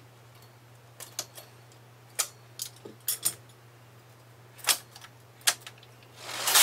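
Metal needles of a knitting machine with ribber clicking as stitches are crossed by hand with a transfer tool: a scattering of separate sharp clicks. Near the end the knitting carriage starts across the needle bed with a loud rushing clatter, the loudest sound here.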